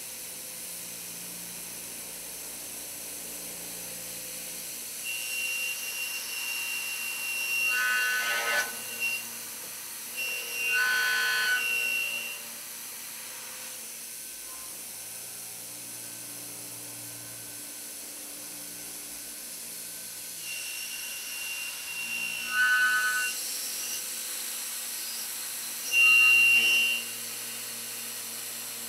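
Voortman V310 milling spindle driving an end mill through steel plate: a steady machining noise with high-pitched whines that come and go several times, loudest a little before the end.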